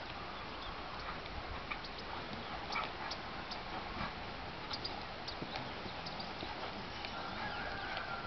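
Hoofbeats of a dressage horse on soft sand footing: light, irregular thuds and clicks. A faint thin steady tone comes in near the end.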